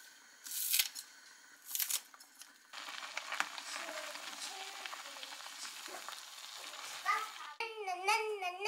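Soup boiling hard in an earthenware pot, a dense crackling bubbling, after two short noisy bursts in the first two seconds. Near the end a high, wavering vocal sound starts.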